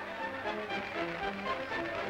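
Instrumental background music: a melody of short held notes that step up and down over a fuller accompaniment.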